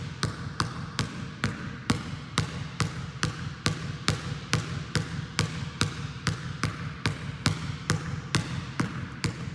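A basketball being pound-dribbled on a hard tiled gym floor: a steady rhythm of sharp bounces, about two to three a second, over a steady low hum.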